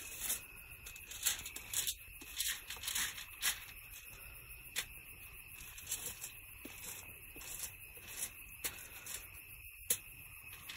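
Steady high insect chirring, with irregular sharp clicks and rustles scattered through it.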